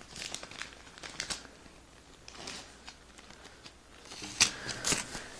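Scattered rustling and light clicks of a small mail package and its wrapping being handled by hand, coming in two bursts with a lull between.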